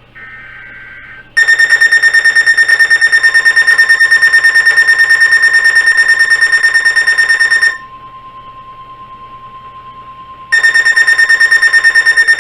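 Emergency Alert System activation for a severe thunderstorm warning: the screechy two-pitch SAME digital header burst, then the steady single-pitch Weather Radio warning tone, overlaid twice by a loud, rapidly pulsing electronic alert beep, first for about six seconds and again for about two seconds near the end.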